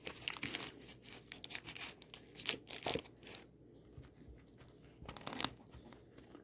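Crusty sourdough loaf crunching and crackling in short, irregular crunches as the tough crust is broken and eaten.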